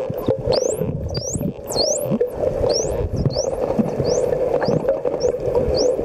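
Wild Indo-Pacific bottlenose dolphin whistling underwater: a quick series of short, high, rising whistles, about two a second, over a steady low rushing noise.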